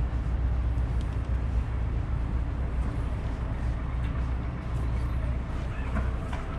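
Street traffic passing, a steady low rumble of engines and tyres.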